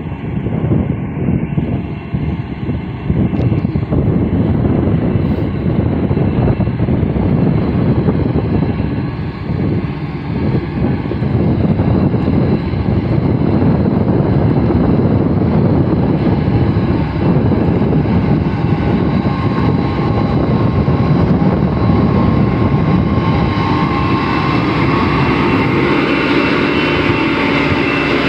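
Heavy diesel road-construction machinery running steadily under load, a continuous engine drone. A steady whine joins it in the last third.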